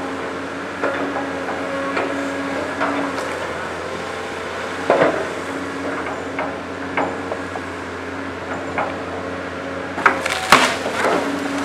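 CAT 320C hydraulic excavator's diesel engine running with a steady hum while its bucket works through felled branches and brush, giving scattered sharp cracks and snaps of breaking wood, loudest in a burst near the end.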